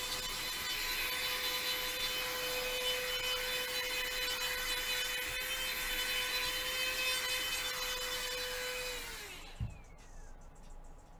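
A small electric motor running at a steady high speed with a whine and a rush of air. About nine seconds in it is switched off and winds down, its pitch falling, with a brief low thump as it stops.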